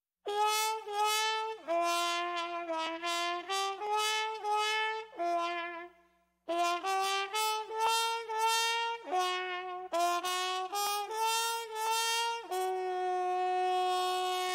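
Short instrumental fanfare melody: a run of quick separate notes, a brief pause about six seconds in, a second run of notes, then one long held note near the end.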